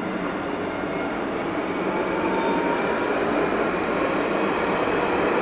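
Steady, dense city street noise with a vehicle-like rumble, growing a little louder about two seconds in.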